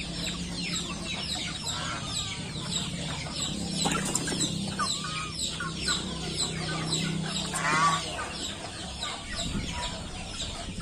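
A flock of young bantam chickens feeding on scattered grain, giving a constant stream of quick, high, falling peeps and clucks. One louder, longer call stands out about eight seconds in.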